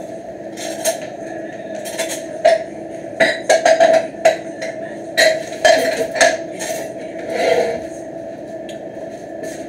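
A kitchen utensil knocking, scraping and clinking against a blender jar and a plastic container as blended salsa is scooped out. The strikes are irregular, with a few quick runs of them, over a steady background hum.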